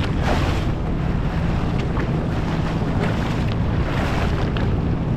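Small open powerboat under way: its motor runs steadily beneath wind buffeting the microphone and water splashing against the hull.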